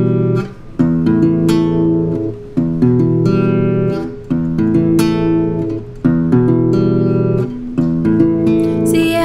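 Acoustic guitar strumming an intro chord progression, the chords changing about every second and a half.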